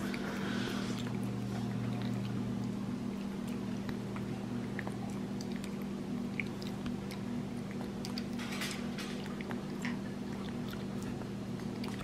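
Steady low hum, with faint scattered clicks and smacks of a capuchin monkey eating applesauce, and a short rustle about nine seconds in.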